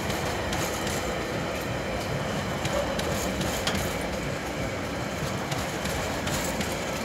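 Freight train wagons rolling past close by: a steady rolling rumble of steel wheels on rail, with a few scattered sharp clicks.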